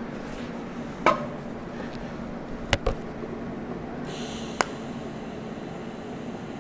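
A few sharp metal clinks and knocks: one about a second in, a quick pair near the three-second mark, and one more later, just after a brief hiss. They sound like stainless parts or clamps being handled on a steel fixture table, over a steady low shop hum.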